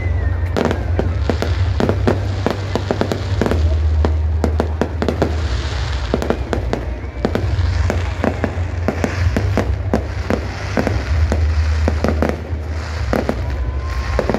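Aerial fireworks display: shells bursting in a rapid, irregular run of bangs and crackles over a steady low rumble.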